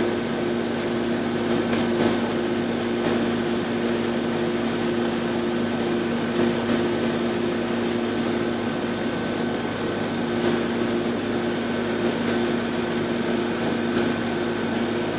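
Air-conditioning condensing unit running: a steady mechanical hum with two held tones over an even whir of fan noise.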